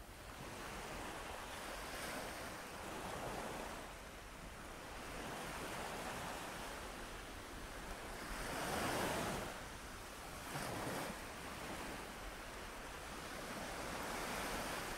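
Ocean surf: waves washing in, swelling and fading every few seconds, with the loudest swell about nine seconds in.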